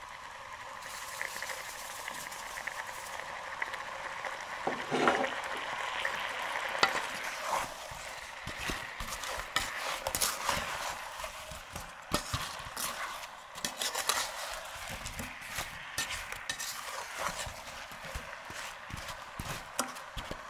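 Apple pieces sizzling with sugar in a stainless steel saucepan, a steady hiss. A wooden spatula stirs them, scraping and knocking against the pan, with the knocks coming often from about halfway through.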